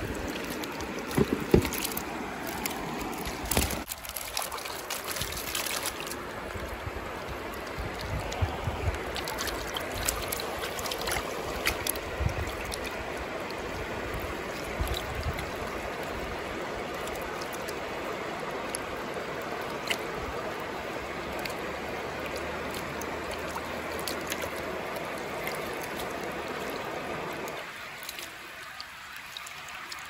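Creek water running steadily, with a few sharp knocks in the first few seconds. The water sound drops quieter near the end.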